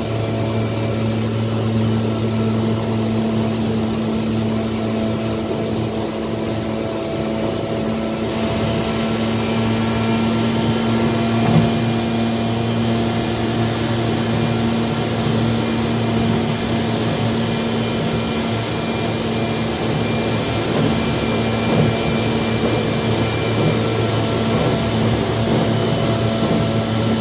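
Tokyu 8500 series electric train running between stations, heard from on board: a steady rumble and hum with faint fixed tones above it, and a single knock about eleven seconds in.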